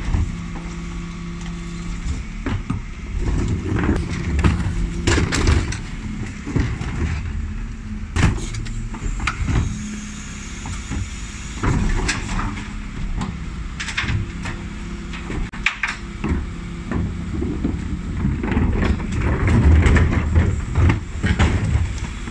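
Dennis Elite 6 bin lorry's engine running steadily as its Terberg OmniDEL lift raises, tips and lowers pairs of plastic wheelie bins, with repeated sharp bangs and clatters as the bins knock against the lift.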